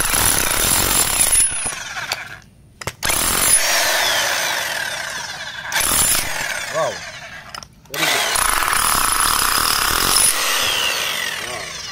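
Bosch GSH500 Gen 2 electric demolition hammer (1,100 W) hammering in three long runs with short pauses between, the last tailing off near the end.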